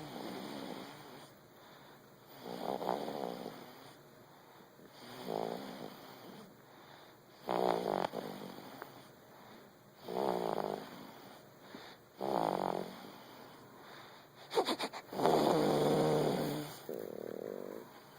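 Snoring: one snore every two to three seconds, each a raspy, fluttering breath, with the longest and loudest snore near the end.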